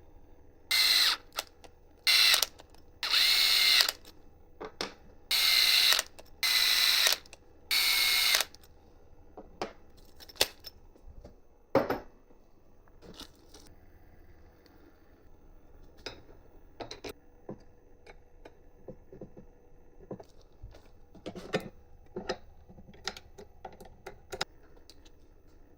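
Handheld power driver running in six short bursts, the motor's whine dipping as it drives screws home during printer assembly. Afterwards come scattered small clicks and taps of hardware being handled, with one louder knock.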